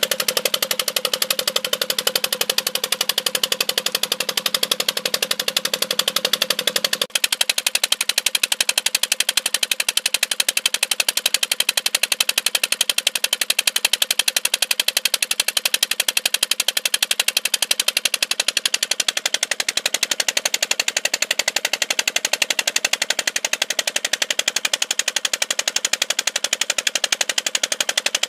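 Petter stationary engine running steadily with a rapid, even firing beat as it drives a tube-well pump by a flat belt. The sound changes abruptly about seven seconds in, then keeps on at the same rapid beat.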